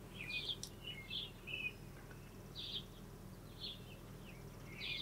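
Small birds chirping faintly, short scattered calls a few times a second, over a low steady background hum.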